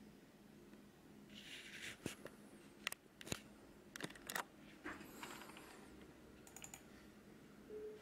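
Quiet scattered clicks, about eight at uneven spacing, with two brief rustles, as of small objects being handled, over a faint steady hum.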